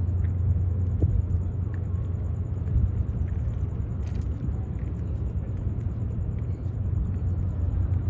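Steady low rumble of the Lobo Marinho ferry's engines, carried across the water as it approaches. Above it runs a faint, rapid, high-pitched pulsing.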